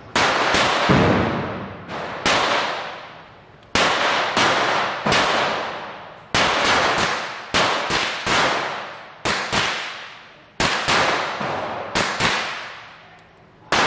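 A GSG-16 .22 LR semi-automatic rifle fired rapidly at an indoor range: about twenty sharp shots in quick pairs and clusters with short pauses between them, each one ringing off in echo.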